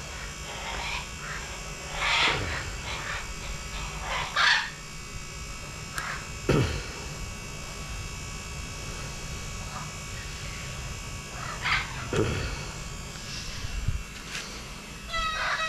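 A steady, motor-like electric hum, broken by a few short low sounds that drop in pitch. A cat meows near the end.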